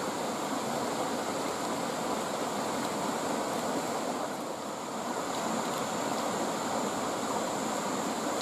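Small river flowing and rippling over rocks: a steady rush of water.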